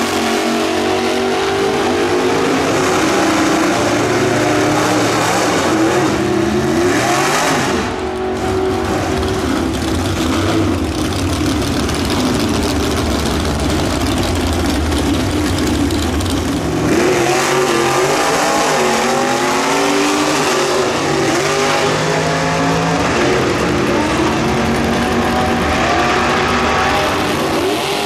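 V8 gasser drag cars, a 1957 Chevy and a Chevy II Nova, revving loudly at the starting line and launching down the strip. The engine pitch climbs again and again as they accelerate through the gears.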